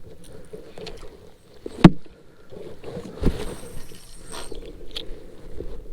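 Small knocks and rattles of gear handled in a kayak, with one sharp, loud knock about two seconds in and a duller thump about a second later, likely against the hull.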